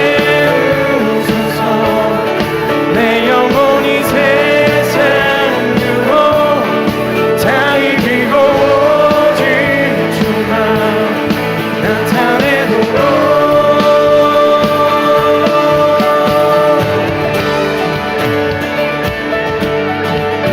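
Contemporary worship music: a band with guitar plays steadily while a singing melody line wavers over it, holding one long note about two-thirds of the way through.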